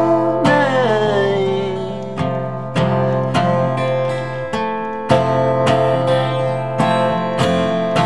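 Acoustic guitar strummed in a steady rhythm, about one stroke every half second or so, over ringing chords. A man's sung note from the end of a chorus line wavers and trails off in the first second or so.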